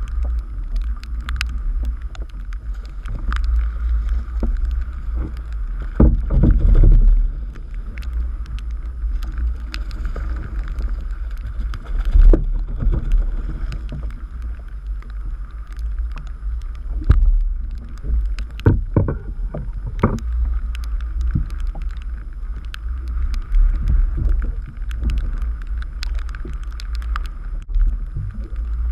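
Steady low rumble of wind on the microphone, with choppy sea water slapping and splashing against a kayak's hull and scattered sharp knocks. The loudest bursts come about six seconds in and again about twelve seconds in.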